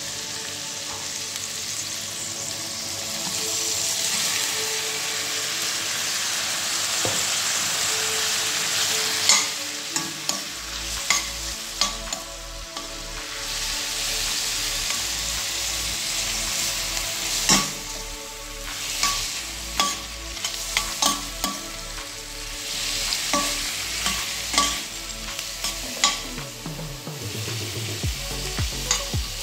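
Shrimp, onion and tomato sizzling as they fry in a stainless steel pan, the sizzle swelling a few seconds in. From about a third of the way through, a metal spoon clicks and scrapes against the pan as the mixture is stirred.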